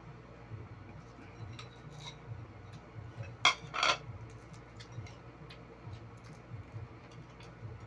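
A plate set down on a tiled floor with a sharp clack about three and a half seconds in, followed by a brief rattle and scrape. Otherwise only faint small clicks and handling sounds of eating by hand.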